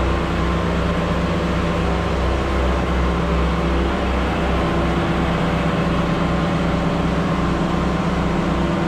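Pressure-washing rig's engine running steadily with a low drone, while a spray gun sends a hissing spray of water onto house siding and windows.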